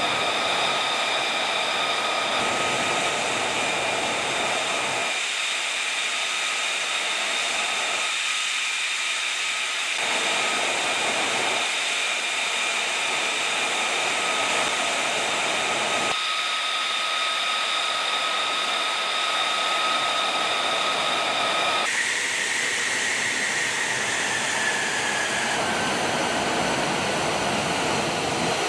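F-35 Lightning II's single F135 turbofan running at ground idle: a steady rushing noise under a high whine of several held tones. About 22 seconds in, the whine falls a little in pitch.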